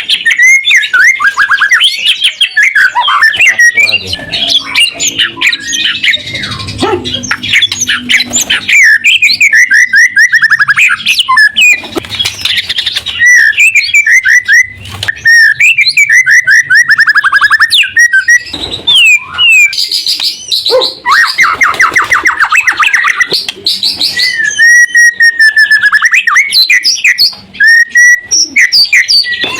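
White-rumped shama (murai batu) singing loudly and without pause, in fast runs of repeated notes, rapid trills and slurred whistles that dip and rise in pitch.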